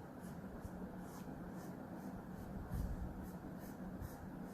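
Pencil sketching lightly on drawing paper, a faint scratching in short repeated strokes, about two a second, as an oval shape is drawn.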